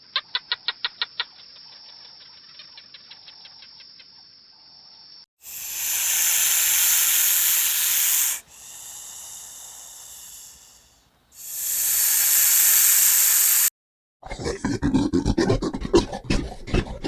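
Animal hissing: two loud, long hisses with a quieter hiss between them, after a faint high steady tone with fast clicking. Near the end comes a fast, rough, rhythmic sound.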